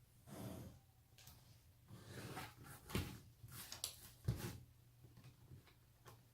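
Quiet handling of a laptop's replacement screen panel being set into the lid: soft rustles with a few light knocks and clicks, the sharpest about three seconds in and just past four seconds.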